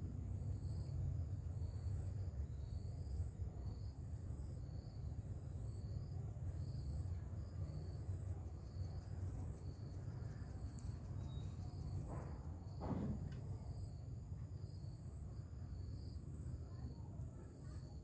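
Insects calling steadily: a high pulsing chirp about once a second and a quicker, lower chirping, over a steady low rumble of outdoor ambience.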